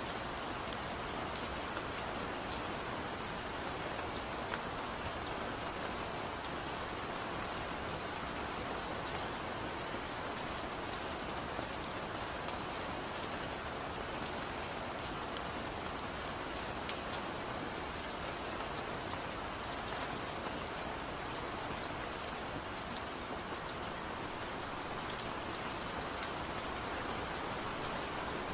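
Steady rainfall, an even hiss of rain with scattered small drop ticks on a surface.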